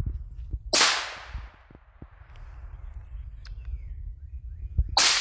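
Two AR-15 rifle shots about four seconds apart, each a sharp crack with a fading echo. They miss the tannerite target, so no explosion follows.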